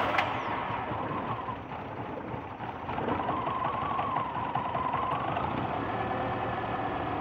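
Honda Stream's four-cylinder petrol engine idling steadily just after starting, running again after a carbon clean of its combustion chambers and with the spark plugs and ignition coils refitted. It runs a little louder from about three seconds in.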